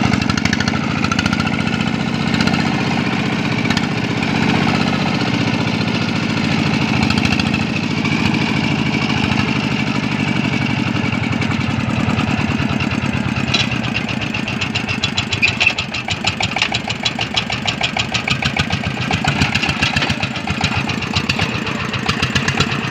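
Single-cylinder diesel engine of a xe công nông two-wheel tractor, running steadily as it pulls its trailer, with a fast, even chugging beat. The beat comes through more sharply and unevenly in the second half.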